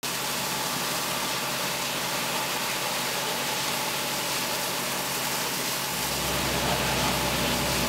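Fire engine's engine running steadily under a constant rushing hiss of the hose jet and the burning straw bales. The low engine rumble grows louder about six seconds in.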